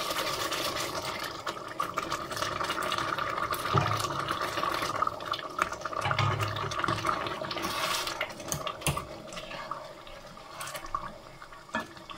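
Chickpea-and-meat cooking broth poured by the ladleful into a pot of hot tomato-onion sauce, with liquid splashing and a few knocks of the ladle on the pot. The pouring eases off about eight seconds in.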